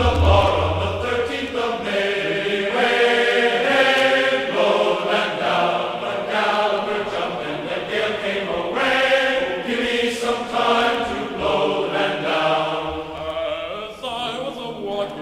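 Background music: voices singing long, held notes that change pitch from one note to the next.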